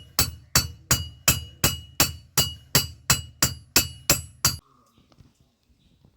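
Steady hammer blows on iron at the anvil, about three a second, each with a bright metallic ring, about thirteen strikes that stop sharply near the end; the iron bar is being forged into a vessel handle.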